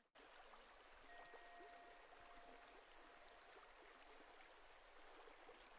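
Near silence: a faint steady hiss, with a faint thin tone for a couple of seconds about a second in.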